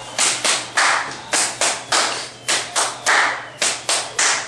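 Hands clapping sharply in a repeating rhythmic pattern, about three claps a second, as body percussion.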